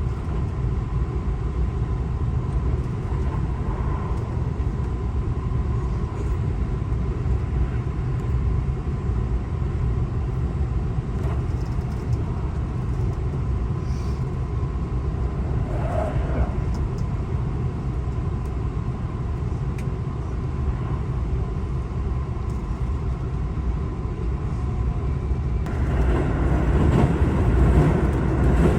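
Steady outdoor city street ambience: a low rumble of road traffic, growing louder near the end as traffic comes closer.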